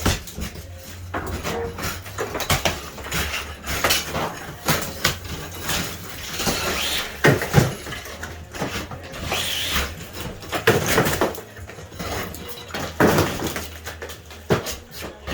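Irregular clattering and knocking of objects being handled in a kitchen, over a steady low hum.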